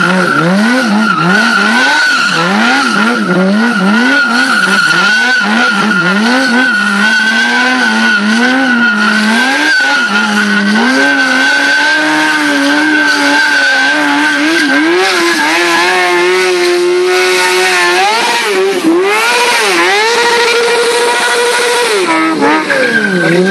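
Sport bike engine revving up and down about once a second while the rear tyre squeals steadily in a smoking burnout drift. About halfway through the revs are held higher and steadier, then swing up and down again near the end.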